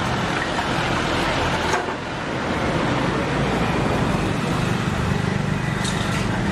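Busy street ambience: a steady wash of road traffic, with an engine drone growing stronger partway through and a few brief light clicks.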